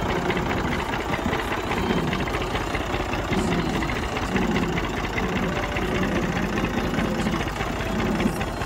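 Massey Ferguson tractor's diesel engine running steadily at low speed while pulling a heavily loaded trailer, with a fast, even chugging beat.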